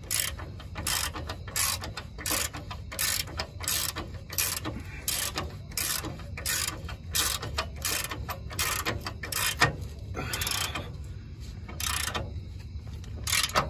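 Hand socket ratchet clicking in quick bursts, about two strokes a second, as a differential mount bolt is run down through a diff drop spacer; the strokes pause about eleven seconds in, then two more follow near the end.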